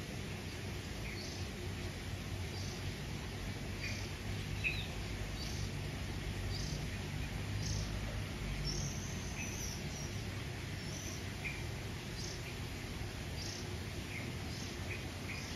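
Birds calling at dusk: short high chirps repeated about once a second, with a longer wavering note about nine seconds in, over a low steady hum.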